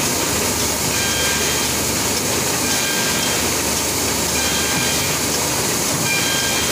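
Smyth-type hook-thread book sewing machine running, a steady mechanical clatter with a short high-pitched tone recurring about every second and a half to two seconds, four times.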